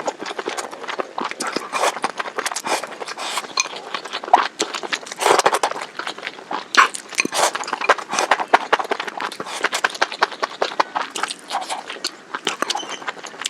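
Close-miked eating of spicy hot pot: a fast, irregular run of wet chewing and mouth smacks.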